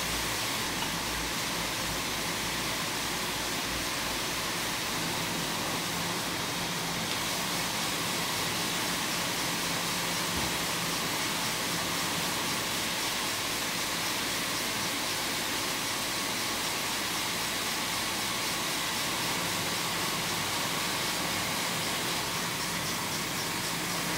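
Steady hiss with a low hum underneath, from the workshop's circular sock-knitting machines and their suction air lines.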